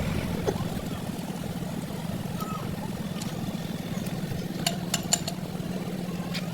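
Truck diesel engine idling steadily, with a few sharp clicks about two-thirds of the way through.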